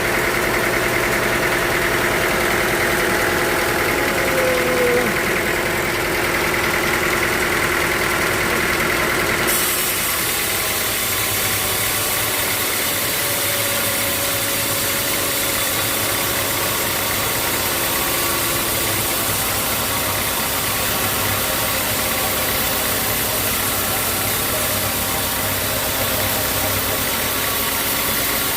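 Sawmill machinery running steadily, a loud motor-driven drone. About a third of the way in, the sound changes abruptly to a noisier drone of the same kind.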